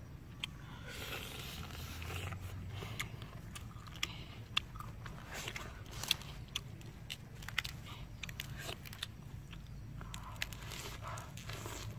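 A boy eating up close: peeling and crunching grilled tiger prawns and chewing, with many short sharp crunches, then biting into a bunch of fresh lettuce near the end.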